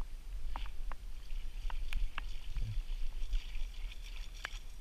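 Outdoor sound on a small fishing boat: a low, fluctuating rumble of wind on the microphone and water against the hull, with scattered light clicks and ticks.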